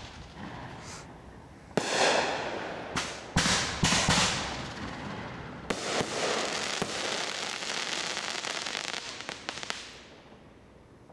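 Aerial fireworks bursting overhead. Several sharp booms come in the first four seconds, then a dense crackling runs about four seconds and dies away near the end.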